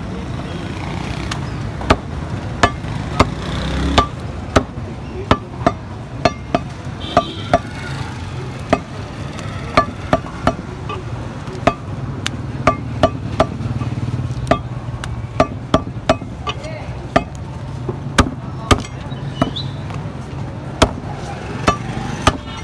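Heavy butcher's cleaver chopping beef and bone on a wooden chopping block: sharp, irregular chops, about one or two a second, some with a short metallic ring.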